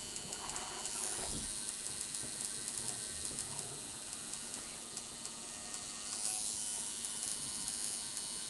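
Electric tattoo machine buzzing steadily as its needle works ink into the skin of a forearm.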